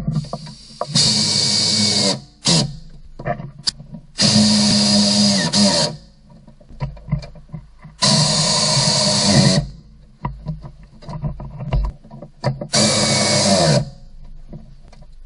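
Pneumatic wrench on an air hose running in four bursts of one to two seconds, each winding down in pitch as it stops, driving in the bolts of a plastic engine undercover. Light clicks and knocks come between the bursts.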